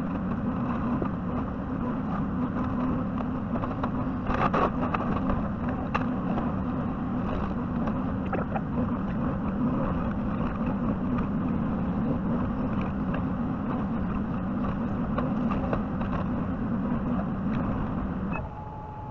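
JCB 55Z mini excavator's diesel engine running steadily at working speed, with a brief clatter about four and a half seconds in. Near the end the engine sound drops away, leaving a thin steady whine.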